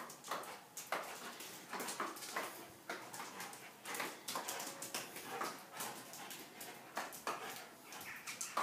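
A Doberman giving short whimpers and yips as it snaps at falling hail, with sharp peaks about once a second. Hailstones patter steadily on the paving underneath.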